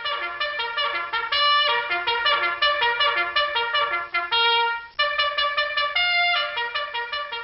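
A trumpet playing a quick melody of short, separate notes, with a few longer held notes along the way.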